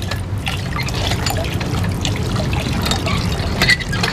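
Water trickling and splashing in a Dragon hand water pump as it is primed with poured water and its lever is worked, over a low steady rumble.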